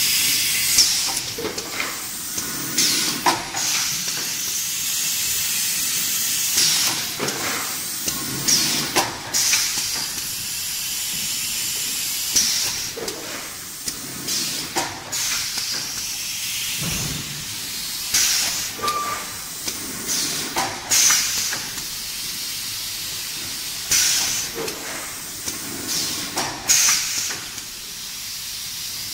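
Pneumatic popcorn-cup filling and sealing machine running: every two to three seconds a short, sharp hiss of compressed air with a clack as the press cycles, over a steady background hiss.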